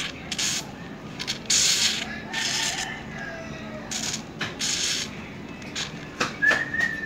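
Aerosol can of hair-removal foam spurting foam in a series of short hissing bursts, the longest about two seconds in, with a brief high squeak from the nozzle near the end.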